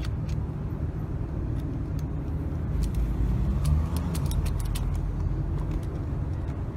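Steady low rumble of road traffic and running vehicle engines, with scattered light clicks and rattles.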